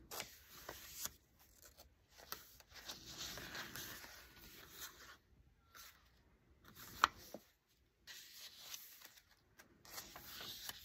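Paper rustling and sliding as the pages and inserts of a thick handmade junk journal are turned and handled, with a sharp tap about seven seconds in.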